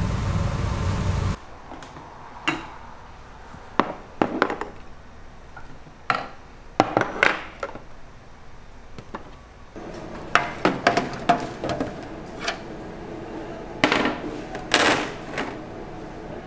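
Ceramic side-dish bowls and plates set down on a wooden table, a scatter of clinks and knocks that grows busier near the end. Before that, a steady loud rushing noise cuts off about a second in.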